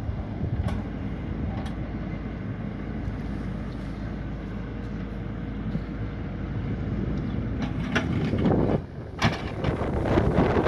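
Small excavator's engine running steadily as the machine works, with wind buffeting the microphone, growing stronger near the end.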